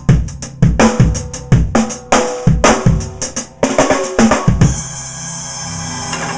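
Pearl Firecracker steel-shell snare drum played in a beat with kick drum and cymbals, including rimshots. The playing stops about four and a half seconds in, leaving a cymbal ringing out.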